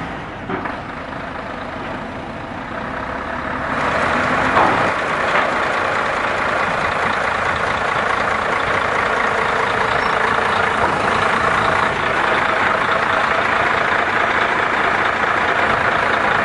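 RSP suction excavator truck running, its steady mechanical noise growing louder about four seconds in and then holding an even rushing level.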